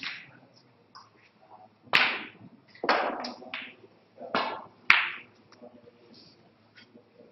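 Snooker balls clacking: cue-tip strikes and ball-on-ball contacts from two shots, about seven sharp clicks spread over the first five seconds, several with a short rattle after them.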